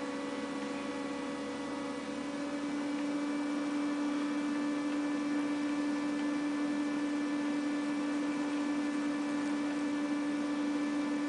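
Steady hum: one constant low tone with fainter higher tones over a light hiss, unchanging throughout.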